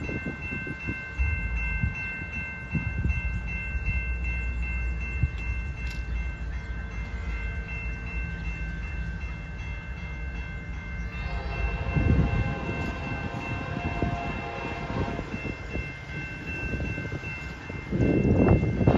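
Grade-crossing warning bell ringing steadily as a CN freight train approaches, with a low rumble from its locomotives. Midway the locomotive horn sounds in the distance for about four seconds, and near the end a louder rush of noise rises as the train draws near.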